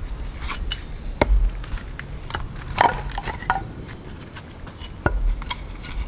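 Wooden knocks and clacks as firewood is handled and stood on a log chopping block. Three sharp hits stand out, about a second in, near the middle and near the end; the last lands with a deep thump.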